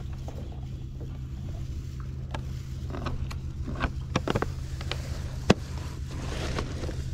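Clicks and taps of a long plastic box of pre-tied hook rigs being handled and snapped shut, the sharpest click about five and a half seconds in, over a steady low motor hum.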